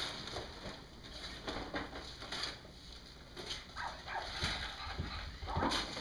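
Gift wrapping paper rustling and tearing in short, irregular crackles as presents are unwrapped.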